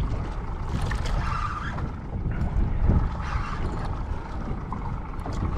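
Wind buffeting the microphone in uneven gusts: a low rumble with a faint hiss above it, strongest about three seconds in.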